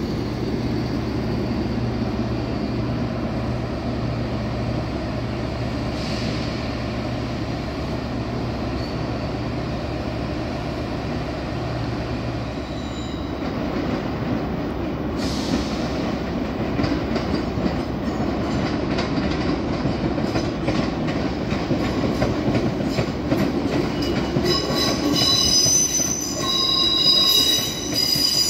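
ScotRail electric multiple unit pulling out, with a steady electric hum and track rumble; the hum stops about halfway through. Over the last few seconds a second train moves along the far line, its wheels squealing in high tones.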